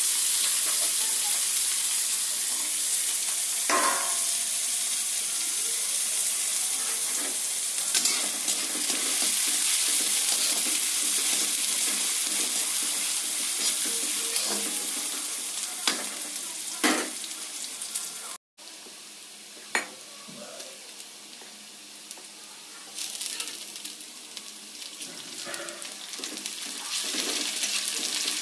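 Food sizzling in hot oil in a pan, stirred now and then with a spatula that clicks against the pan. The sizzle drops out briefly about two-thirds of the way through, comes back quieter, then grows louder again near the end.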